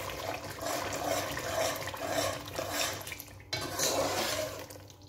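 A metal spoon stirring thick curry gravy in a cooking pot: wet sloshing swirls at about two strokes a second, with a brief break about three and a half seconds in.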